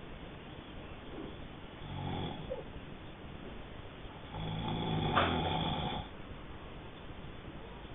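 Snoring: a short rough snore about two seconds in, then a longer, louder one from about four and a half to six seconds in, in a slow breathing rhythm.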